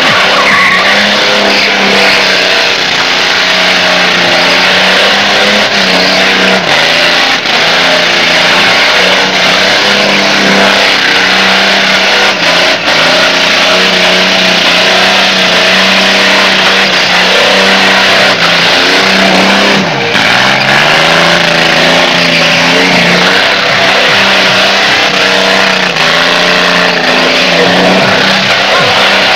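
Car engine held at high revs with tyres squealing as the car is spun in doughnuts (cavalo de pau). About twenty seconds in the engine note drops briefly and climbs again.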